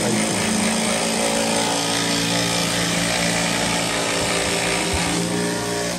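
An electric power tool running steadily with a constant motor hum, cutting off suddenly near the end.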